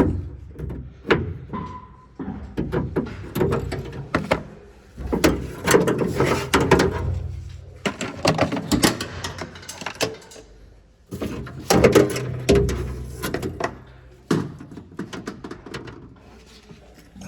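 Metal clanks, clicks and rattles as a lower door latch assembly is worked loose inside a van door, coming in irregular bursts with short pauses.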